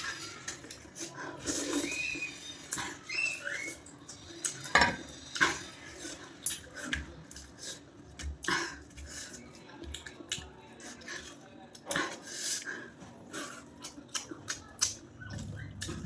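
Close-up eating sounds of puffed rice (muri) being chewed with rice and chutney: irregular crisp crunches and mouth clicks, with a few short squeaky sounds early on.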